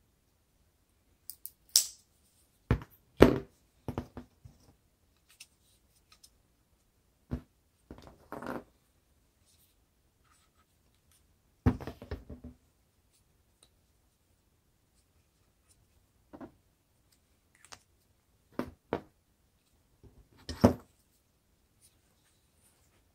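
Scattered short snips and taps a second or a few apart: scissors cutting drinking straws, and scissors, ruler and straws being handled and set down on a tabletop.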